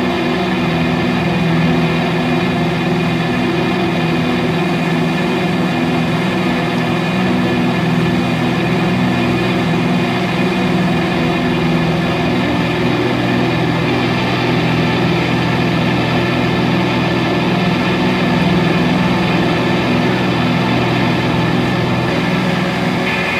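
Dungeon synth music: lo-fi synthesizer pads holding a dense, unchanging low chord as a steady drone. Some upper notes shift about two-thirds of the way through, and the low notes fall away near the end.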